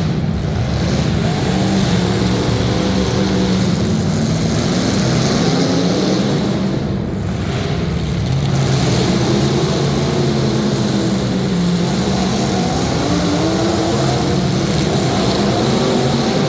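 Demolition derby cars' engines running and revving together, a loud steady drone whose pitch wavers up and down.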